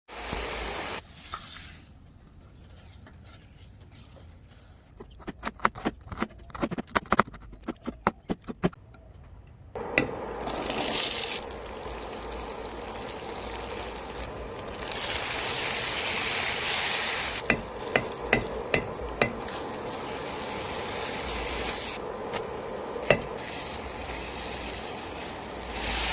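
A run of sharp knocks and clicks, then prawns sizzling steadily as they fry in a pan, with now and then a sharp tap of a utensil on the pan.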